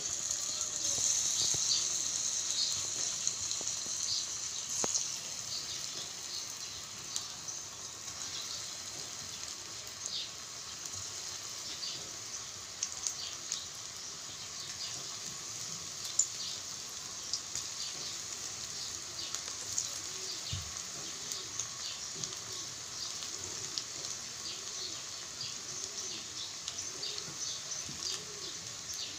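Hot oil sizzling and crackling steadily as battered soya-chunk lollipops deep-fry in an iron kadhai, loudest in the first few seconds. In the second half a pigeon coos faintly and repeatedly.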